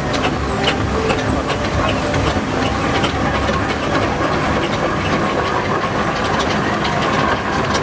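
Steam traction engines on the move, a steady low rumble of running machinery with irregular metallic clanks and ticks over it.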